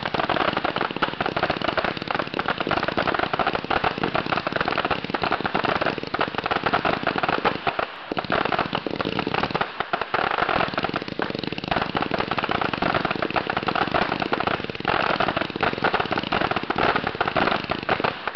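Firecrackers going off in a long, dense run of rapid pops and crackles, with two brief lulls about eight and ten seconds in.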